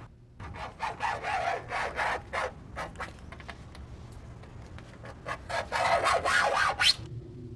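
An irregular series of rasping, scraping strokes, loudest and most rapid shortly before they stop. A steady, pure tone starts near the end.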